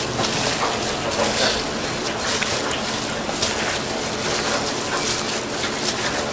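Food sizzling and crackling in hot oil at a street-food cooking station: a steady hiss with many small pops and clicks throughout.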